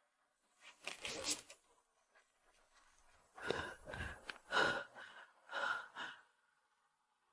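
A person's faint gasping, sobbing breaths: a short one about a second in, then four or five a second or so apart in the middle.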